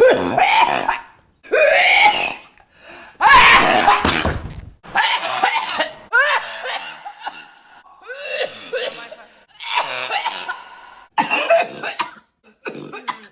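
A woman's coughs, one after another, about nine in all: snort-like, fart-like coughs with a voiced, pitched sound, some of them sliding in pitch.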